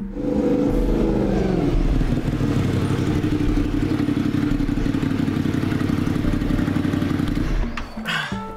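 Motorcycle engine running as the bike rides along and pulls up: its pitch drops over the first two seconds, then holds steady, and the engine stops near the end.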